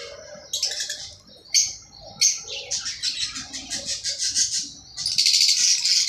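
Male parblue lovebird calling shrilly, rapid high chirps in short bursts that run into nearly continuous chattering, loudest near the end. He is calling for his mate, which has died.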